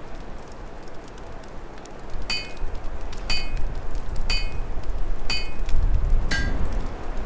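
Open fire crackling in a fireplace over a low rumble of storm wind that grows louder about two seconds in. Five ringing metallic strikes come about a second apart, the last one lower in pitch.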